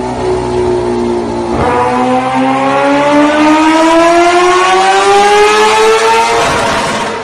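High-revving engine accelerating. After a brief dip in pitch about one and a half seconds in, the pitch climbs steadily for about five seconds, then fades out near the end.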